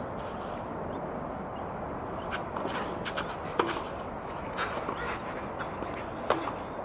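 Tennis rally: racquets striking the ball back and forth. The two loudest hits come about three and a half seconds in and again near the end, with fainter strikes and clicks between them, over steady outdoor background noise.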